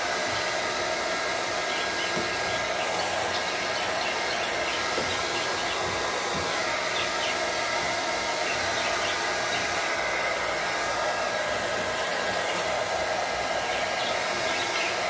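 Handheld hair dryer running steadily, blowing air into an open desktop computer case to clear out dust.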